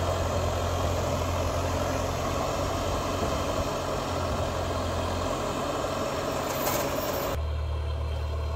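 Vehicle engine idling steadily, a constant low hum. About seven seconds in the sound changes abruptly, the brighter part dropping away and leaving a duller low hum.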